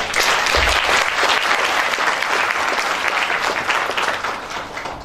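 A large audience applauding, dying away near the end.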